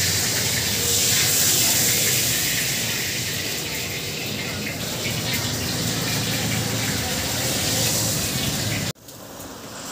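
Chow mein frying in a pan of hot oil, a steady sizzling hiss that cuts off suddenly near the end.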